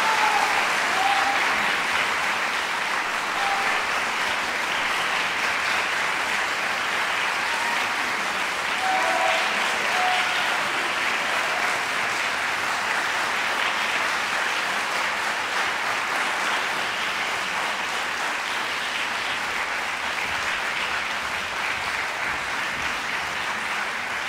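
Concert audience applauding steadily, the clapping easing off slightly near the end.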